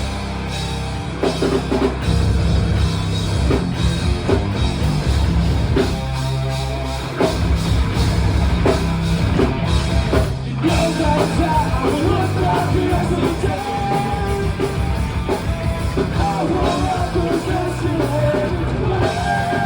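Live rock band playing loud, driving rock with a full drum kit and electric guitars, with a brief break about ten seconds in before the band comes back in.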